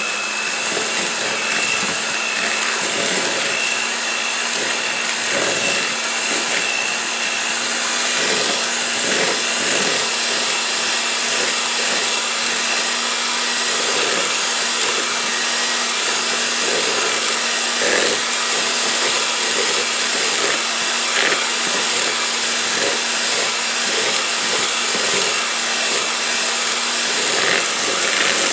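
Electric hand mixer running steadily at speed, its beaters creaming softened butter and sugar in a mixing bowl, with a high whine over the first several seconds and brief louder rattles now and then.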